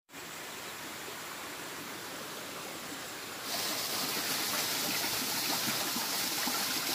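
Water rushing along the concrete channel of a village water-supply tank; about three and a half seconds in it turns louder and hissier, as water pours from a pipe outlet and splashes into the tank.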